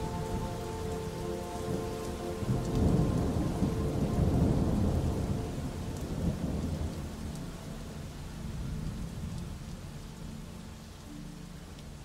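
Thunderstorm: steady rain with a long rolling rumble of thunder that swells about two and a half seconds in, is loudest around four to five seconds, and dies away.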